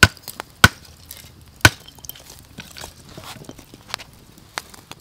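Lumps of charcoal being set onto a small wood fire, knocking and clacking against each other: three sharp knocks in the first two seconds, then a few lighter clicks.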